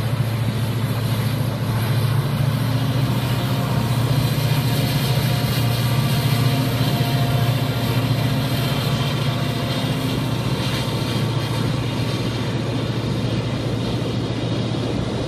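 EMD GT26CW diesel-electric locomotive's 16-cylinder two-stroke engine running under load with a steady low drone, mixed with the rumble of steel wheels on a steel girder railway bridge.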